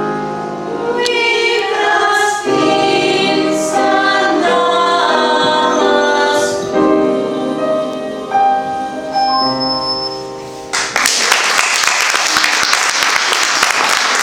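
A small group of women singing a Russian song in several voices, with long held notes at the close. About eleven seconds in, the singing gives way suddenly to applause.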